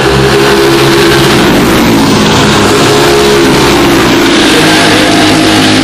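Pack of racing karts with Briggs & Stratton Animal four-stroke engines passing at speed. Several engine notes overlap, and their pitch drops in the middle as they go by.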